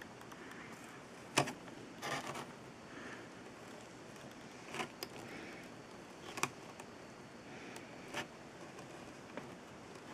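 Quiet room tone broken by a handful of short, sharp clicks and knocks at irregular intervals. The loudest comes about a second and a half in.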